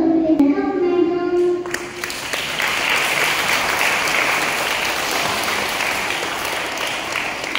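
Children's voices singing into a microphone for the first second or so, then an audience applauding from about two seconds in.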